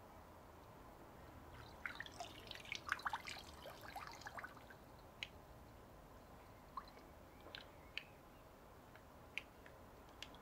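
Pool water splashing and dripping, picked up by an underwater camera: a quick flurry of small plinks and splashes about two to four and a half seconds in, then a few scattered single drips.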